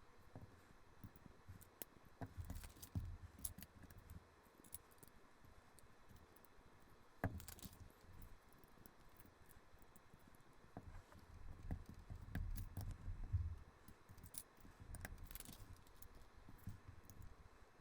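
Plastic LEGO bricks being handled and pressed together during building: faint scattered clicks and rattles of small pieces, with a sharper click about seven seconds in and soft low handling bumps in between.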